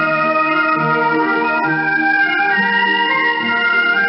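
Instrumental music heard over a shortwave radio broadcast: sustained, overlapping organ-like notes that change pitch every half second or so, narrowed in tone by the receiver's limited audio bandwidth.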